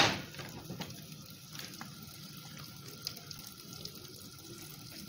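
Lemon squeezed in a hand-held citrus press, the juice trickling faintly into a bowl.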